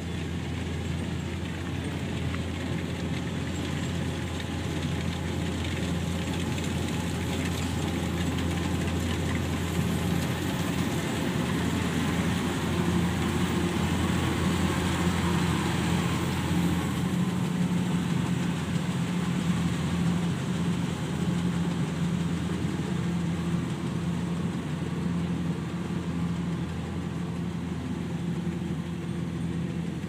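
Kubota DC-105X combine harvester's diesel engine and threshing machinery running steadily while harvesting rice, a constant hum that grows a little louder around the middle as the machine comes close.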